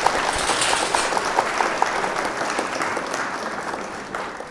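Applause from a crowd, many hands clapping together, fading out near the end.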